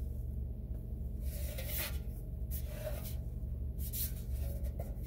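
Galvanized tin containers turned and shifted in the hands, making a few short rubbing scrapes about two seconds in, near four seconds and near the end, over a steady low hum.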